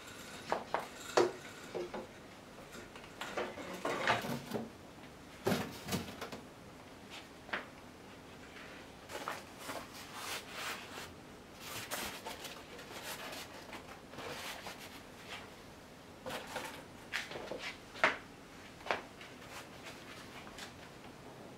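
Scattered knocks, clicks and rustles of someone handling and setting down lightweight reflector boards and stepping about in sandals on a concrete floor. The sharpest knocks come about a second in and again near the end.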